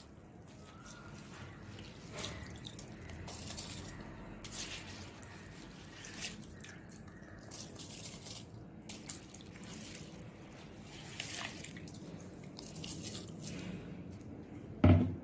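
Soaked rice dropped by the handful into a pot of simmering milk-and-water mixture, giving scattered small splashes and drips. A short, louder low thump near the end.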